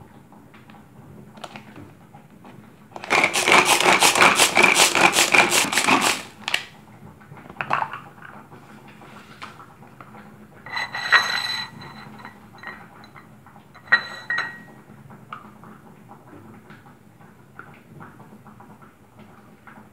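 Kitchen knife rapidly chopping carrot on a thin plastic cutting board for about three seconds, a quick run of knocks on the board. Later come scattered knocks and two short ringing clinks as the diced carrot is handled and tipped into a bowl.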